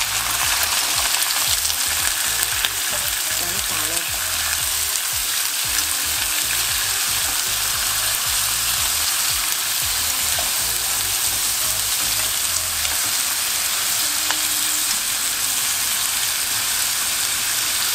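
Thin slices of raw beef tongue sizzling steadily in a hot pan of melted butter, with chopsticks moving the slices around.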